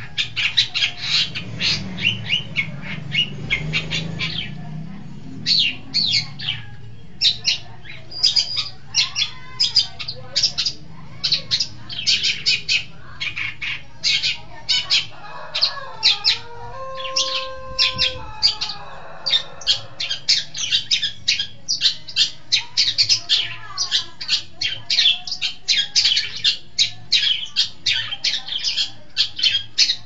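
Long-tailed shrike (cendet) calling in fast runs of short, chattering notes, several a second. About halfway through it pauses briefly and a few steady, level tones sound.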